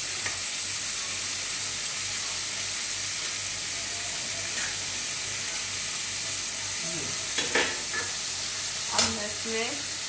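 Chopped bottle-gourd peels and small potato pieces sizzling as they fry in hot oil in a kadai, stirred with a metal spatula, with a few short knocks against the pan in the second half.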